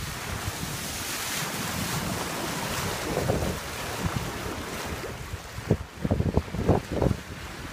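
Wind blowing on the microphone over the rush and splash of choppy sea water beside a moving sailboat. Heavy wind gusts buffet the microphone several times near the end.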